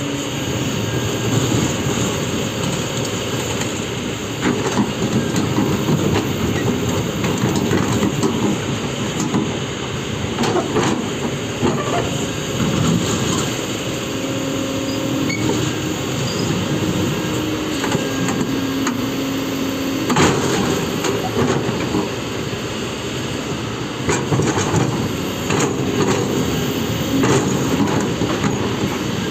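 Heavy diesel machinery, most likely an excavator, running with a steady rumble, with occasional clanks and knocks.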